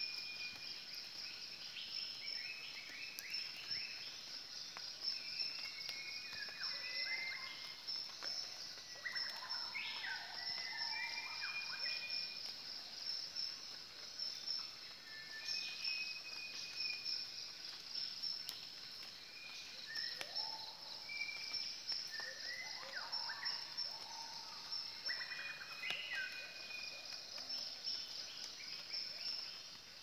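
Tropical rainforest ambience. A steady, high, pulsing insect chorus runs throughout, and many whistled animal calls rise and fall in pitch over it.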